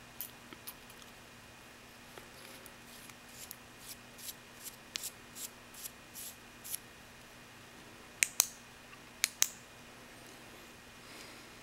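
Small stainless-steel flashlight being handled: its AAA battery goes in and the head is threaded back on, a run of light metallic ticks and scrapes. Then the tail push-button clicky switch clicks in two sharp pairs about a second apart, each pair one press and release.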